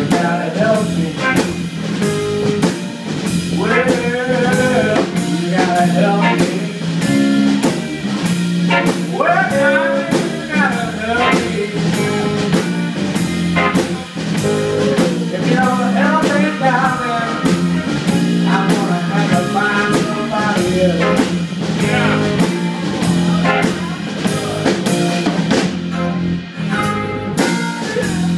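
Live blues band playing: harmonica through the vocal microphone over electric guitar, electric bass and a drum kit keeping a steady beat.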